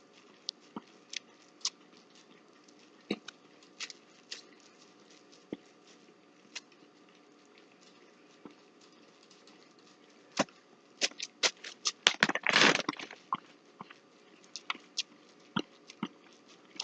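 Dog licking yogurt off a plastic bag: scattered wet licking smacks and small clicks. About eleven seconds in they come thicker, with a longer spell of plastic rustling.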